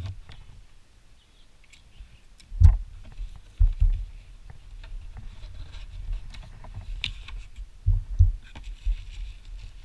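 A package being handled and unpacked: dull thumps and knocks, several of them close together a few seconds in and again near the end, with small clicks and light rustling of packing material.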